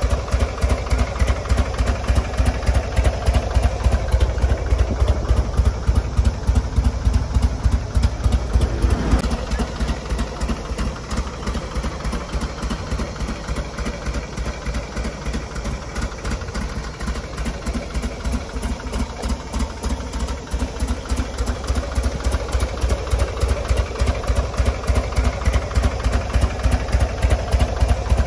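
Buell air-cooled V-twin engines idling with a steady, pulsing beat: first an XB9SX Lightning, then, after a cut about ten seconds in, an XB12SS.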